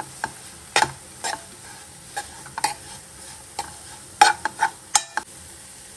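Spoon scraping and knocking against a nonstick pan while stirring grated coconut in jaggery syrup, about nine irregular strokes over a faint steady sizzle. The mixture is being stirred until it comes together as a sweet coconut filling.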